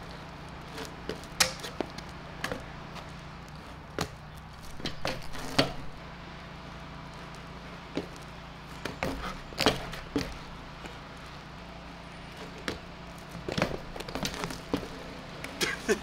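BMX bike ridden through flatland tricks on pavement: irregular sharp knocks and clacks as tyres, pegs and parts land and rattle, some in quick clusters, over a steady low hum.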